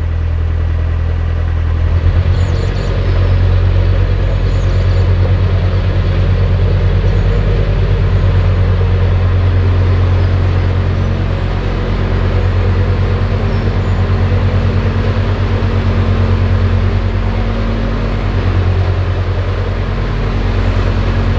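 Narrowboat's diesel engine running steadily under way, with the revs and loudness stepping up about two seconds in.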